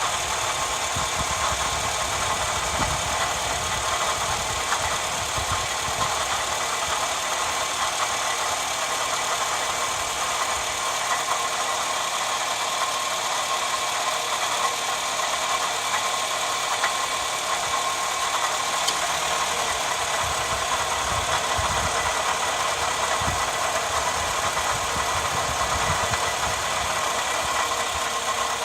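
Toyota Alphard (10 series) engine idling with the abnormal noise of a failed V-belt tensioner, a steady whine over the engine running.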